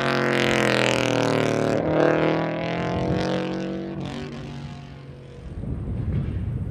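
Subaru Liberty RS Turbo's turbocharged flat-four engine pulling hard, its pitch dipping and climbing again about two seconds in, then fading away over the next few seconds. A low, rough rumble rises near the end.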